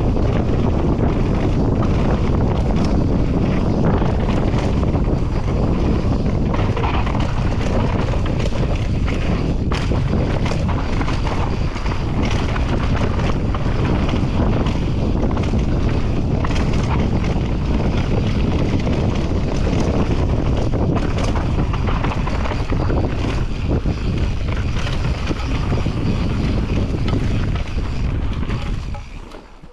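Wind rushing over the microphone as a mountain bike descends fast, with the tyres on dirt and the bike clattering over bumps in quick knocks. The whole sound fades out near the end.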